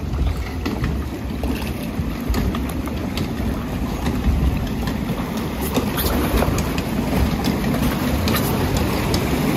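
Water rushing along the trough of a Mack Rides log flume under a floating boat, over a steady low rumble. From about six seconds in, more frequent sharp clicks and splashes come in as the boat reaches the foot of the lift hill.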